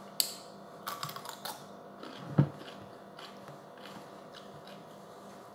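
Crunchy bites and chewing of fresh raw cucumber: a sharp crisp snap right at the start and several more crisp crunches about a second in, then quieter chewing clicks. A loud dull thump about two and a half seconds in is the loudest sound.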